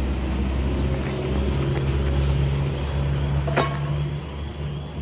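Wind rumbling on the microphone over a steady low engine hum, with one sharp click about three and a half seconds in.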